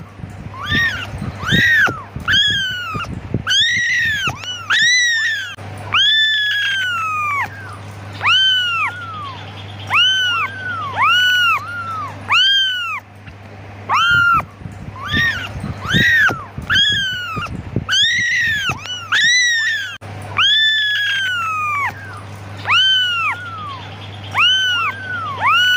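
Newborn kittens mewing over and over, high thin calls that each rise and fall in pitch, about one to two a second with short pauses, the calls of kittens crying for their mother.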